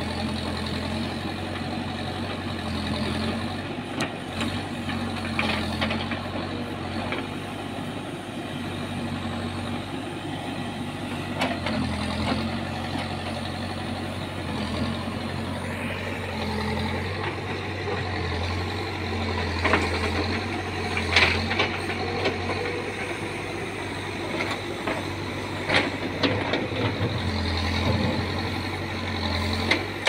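Manitou backhoe loader's diesel engine running steadily while the backhoe digs, swelling and easing as the arm works. Several sharp knocks sound from the digging, the loudest about two-thirds of the way through.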